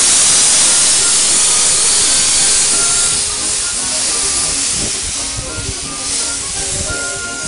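Steam hissing hard from the cylinder drain cocks of Dr Syn, a 15-inch-gauge steam locomotive, as it rolls past. The hiss is loud at first and eases after about three seconds.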